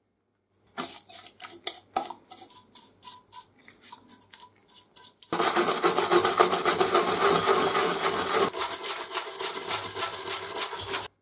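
A stiff wire brush scrubbing paint, softened by paint stripper, off a small metal oiler part sitting in a metal pan. It starts as separate scrapes and taps, then from about five seconds in turns to rapid continuous scrubbing that stops abruptly near the end.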